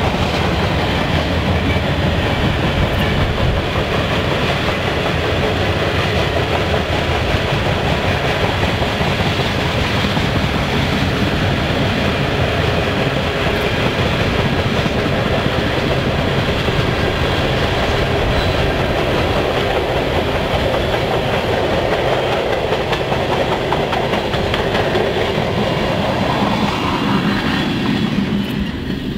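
Freight train cars (tank cars, covered hoppers and boxcars) rolling past, a steady rumble of steel wheels on rail. It eases off near the end as the last cars go by.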